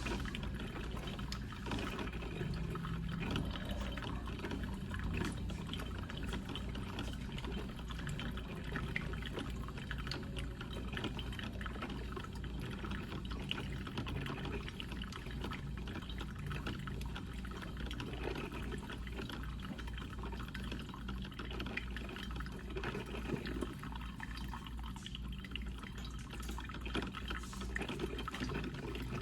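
Coffee percolator perking: a steady wash of bubbling, gurgling and dripping water, with a low hum underneath.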